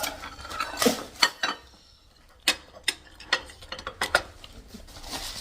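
Cutlery clinking against dishes: a string of about a dozen sharp, irregular clicks and taps.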